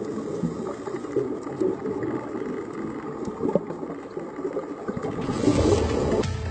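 Muffled, gurgling water noise, the sound of a camera recording underwater, with a louder hissing rush about five seconds in.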